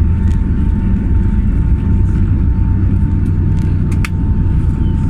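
Airplane engines running steadily during the climb after takeoff: a loud, even low rumble with a constant steady tone, and a couple of brief clicks about four seconds in.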